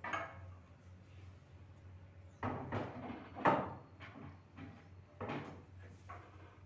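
Marble niche slab scraping and knocking against the stone frame as it is lifted and slid into the niche opening, in several short scrapes, the loudest about halfway through.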